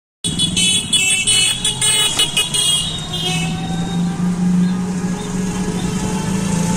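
Ride inside an open-sided three-wheeled rickshaw: its steady motor hum with the rattle and noise of the road. A horn toots rapidly over and over through the first few seconds.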